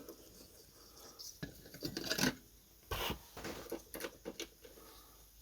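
Hands fitting a ribbon spool and threading the ribbon through an antique typewriter's ribbon mechanism: scattered small clicks and short rubbing scrapes, loudest about two and three seconds in.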